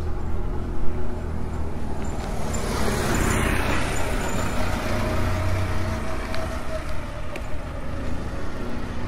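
A car passing by, its rush of road noise swelling and fading, loudest about three and a half seconds in, over a steady low engine hum.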